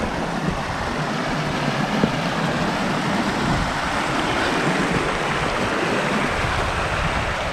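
A small, rocky moorland burn rushing and splashing over stones close by: a steady, loud rush of water with an uneven low rumble underneath.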